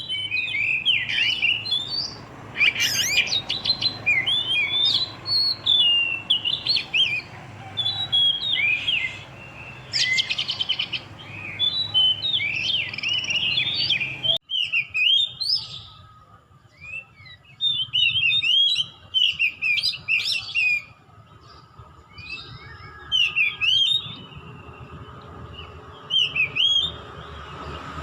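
Young oriental magpie-robin singing in short, varied whistled phrases with occasional rapid trills, a juvenile still learning its song.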